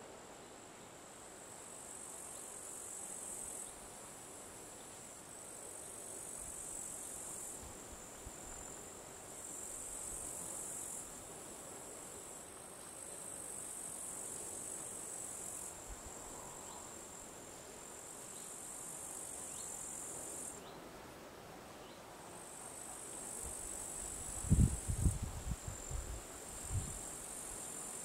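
Insects chirring in a high, continuous trill that comes in phrases of a few seconds with short breaks between them. A few low thumps come near the end.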